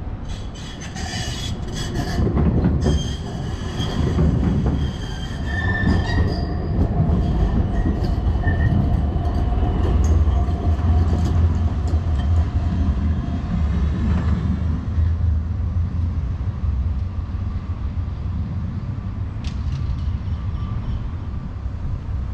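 Tram running through the stop: a steady low rumble of the tram, with high-pitched wheel squeal and a few clicks over the first several seconds, the squeal dying away after that.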